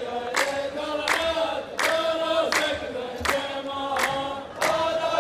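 A row of men chanting a drawn-out melody in unison, as in the chorus of a Gulf poetry duel (muhawara), with sharp hand claps all together about every three-quarters of a second.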